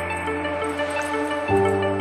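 Background music: an electronic track with short repeating pitched notes over a held bass line, the bass changing to a new note about one and a half seconds in.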